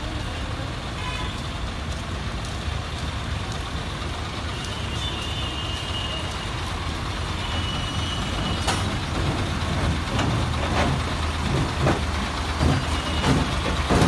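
Heavy truck engine running steadily at low revs, with a string of sharp knocks and clanks in the second half.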